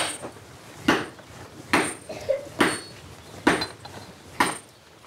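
Blacksmith's hand hammer striking steel to cut it, six even blows a little under a second apart, each with a short metallic ring.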